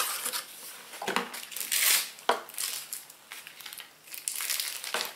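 Packaging crinkling and rustling in irregular bursts as a makeup brush is unwrapped by hand, loudest about two seconds in and again near the end.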